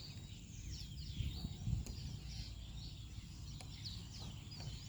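Small birds chirping in many quick, falling notes, over a steady high-pitched hum, with low rumbling and a few soft bumps underneath.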